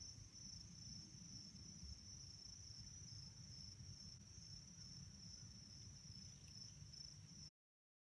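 Crickets trilling, faint and steady, over a low rumble; the sound cuts off suddenly near the end.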